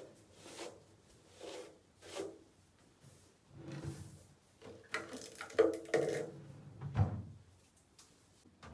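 Handling sounds of objects being moved: short rustles and knocks at first, a busier, louder cluster in the middle, and a low thud about seven seconds in.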